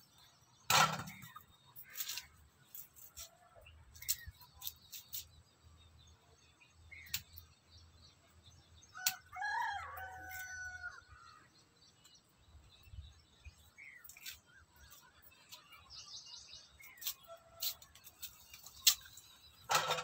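A rooster crows once, a call of about two seconds near the middle. Scattered sharp clicks and knocks come throughout, the loudest about a second in and again near the end.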